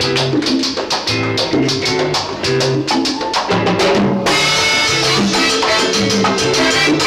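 Live salsa orchestra playing, with congas and a bass line keeping a steady rhythm; about four seconds in the band's sound grows fuller and brighter.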